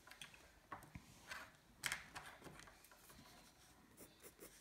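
Faint handling sounds at a drawing desk with one sharper tap about two seconds in, then short quick strokes of a pencil on sketchbook paper near the end.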